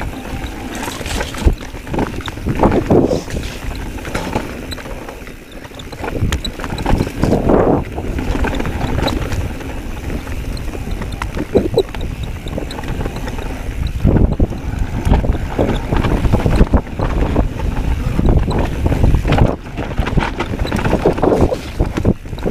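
Mountain bike descending a rough dirt forest trail: tyres rumbling over the ground and the bike rattling with many short knocks, with wind buffeting the microphone. The noise surges louder several times.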